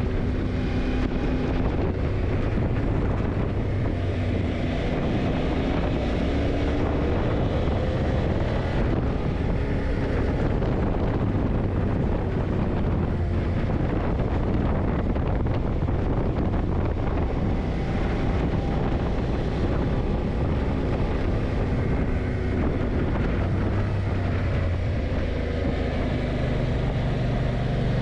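Yamaha TDM900's parallel-twin engine running while riding, its pitch rising and falling with the throttle, under heavy wind noise on the microphone.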